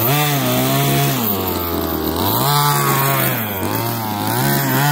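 Small gas two-stroke engine of a 1/5-scale Exceed Barca 4x4 RC buggy revving up and down with the throttle, its pitch rising and falling three times.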